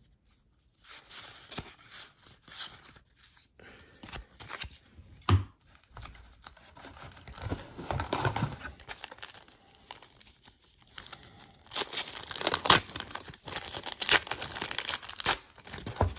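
A trading-card pack from the 1991-92 Score hockey box being handled and torn open: rustling and crinkling of the wrapper with tearing, busiest and loudest in the last few seconds. About a third of the way in there is a single knock.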